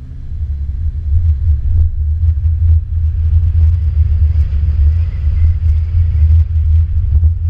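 Subaru Crosstrek driving off-road: a loud, low rumble of engine and ride, the engine's pitch rising over the first couple of seconds as it pulls away, with scattered knocks and clatters from the rough ground.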